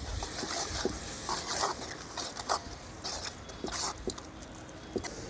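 Steel ladle scraping and clinking irregularly against a black iron kadai as thick ground coconut paste is stirred into onion-tomato masala.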